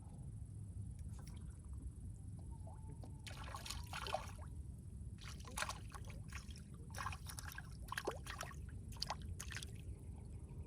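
Several short bursts of water splashing and sloshing, in four clusters, over a steady low rumble.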